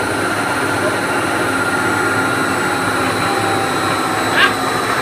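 Webb 3-horsepower milling machine running steadily, with one short sharp sound about four and a half seconds in.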